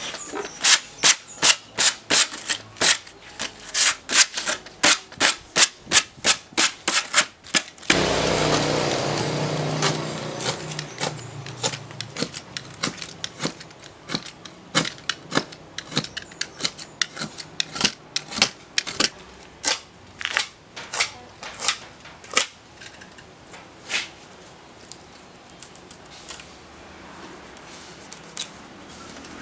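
Utility knife blade scraping along the splintered edge of a plywood sheet in quick, regular strokes, about three a second at first. About eight seconds in the sound changes abruptly to a noisier stretch, then slower, sparser scrapes that thin out toward the end.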